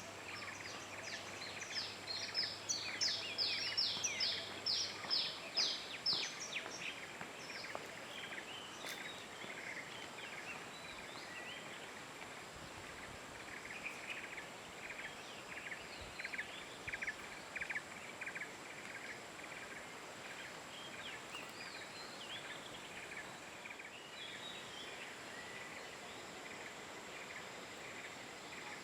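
Outdoor tropical ambience with an animal's sharp calls repeated about three times a second: a loud run in the first six seconds and a softer run around the middle, over a faint steady high tone.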